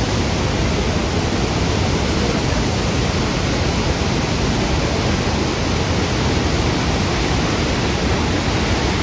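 Waterfall in heavy flood: a loud, steady rush of floodwater pouring over rock ledges and churning through rapids.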